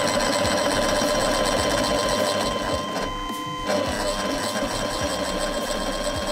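Freund SPIR-A-FLOW rotor granulator's rotor disc and drive running unloaded with a steady whine, going briefly quieter about halfway through.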